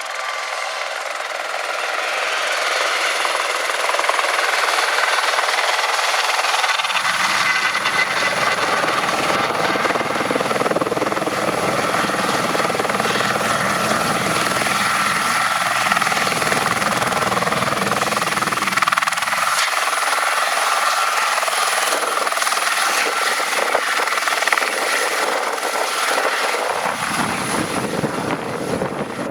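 Airbus H130 helicopter in flight: its single turboshaft engine whines with steady high tones over the rotor noise, growing louder over the first few seconds, then holding steady.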